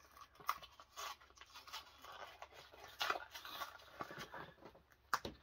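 A magazine mail package being opened by hand: irregular rustling and scraping of the wrapping, with sharp clicks about half a second in and a louder one near the end.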